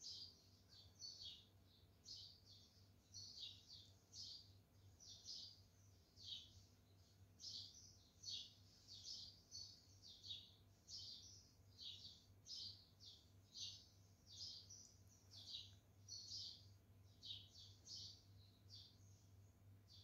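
Faint high chirping, short calls repeated about twice a second, over a low steady hum.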